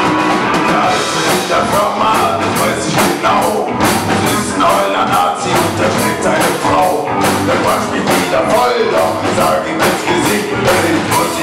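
Live rock band playing: electric guitar over a drum kit, with cymbal strokes hit steadily.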